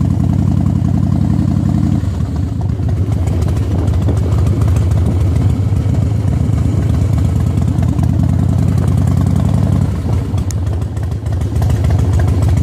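Motorcycle engine running at low speed while being ridden, a steady low note that dips about two seconds in and again near the end, then picks back up.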